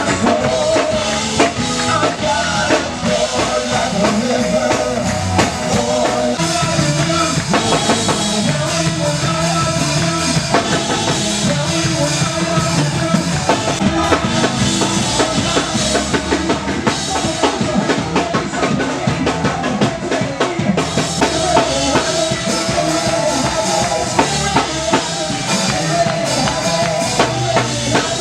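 Full-band music with a drum kit keeping a steady beat under bass and held instrument tones.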